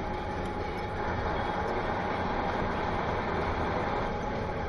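Steady road noise of a moving car picked up by its dashcam inside the cabin: tyre rumble and engine hum with a faint steady whine, slightly louder from about a second in.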